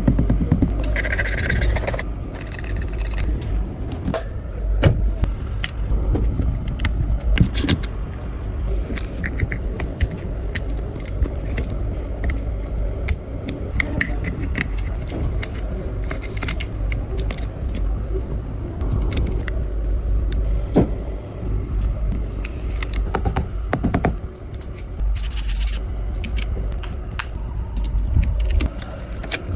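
Handling and scraping noise from phone repair work on an iPhone 13 Pro Max: many sharp clicks and taps of tools on the phone, over a steady low hum. There are short hisses about a second in and again near 25 seconds.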